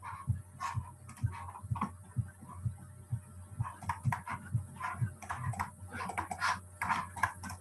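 Computer keyboard and mouse clicks close to the microphone: irregular light taps, several a second, over a faint steady low hum.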